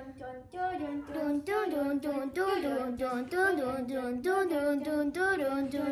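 A child singing a bouncy tune, the notes rising and falling about twice a second.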